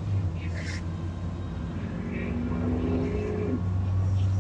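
Gasoline school bus engine running with a steady low drone, on a bus whose owner says it has an exhaust leak and a bad converter. A higher tone comes in briefly about halfway through.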